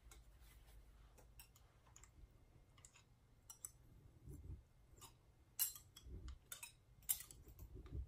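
Scattered light clicks and taps of a knife against the inside of a glass canning jar packed with cucumbers and brine, as it is poked down to release air bubbles; the two sharpest clicks come in the second half, along with a few soft bumps.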